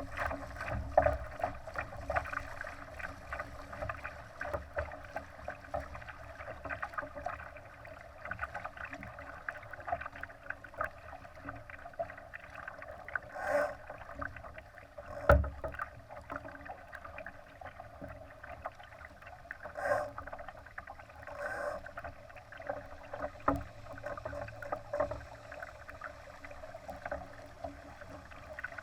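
Water splashing and gurgling against the hull of a Laser sailing dinghy under way, a steady crackling wash with a few sharper knocks, the loudest about halfway through.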